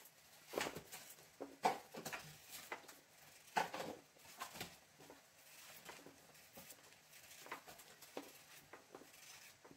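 A knife peeling a raw potato by hand: soft, irregular scraping strokes of the blade taking off the skin.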